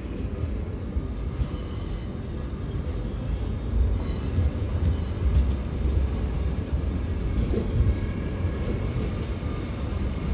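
MittelrheinBahn Siemens Desiro ML electric multiple unit running into the platform: a low rumble of wheels on track that grows louder as the cars come past, then holds steady, with a few brief faint wheel squeals.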